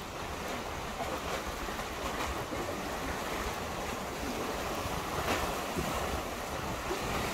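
Strong wind buffeting the microphone, over the steady wash of sea water against a concrete tetrapod breakwater.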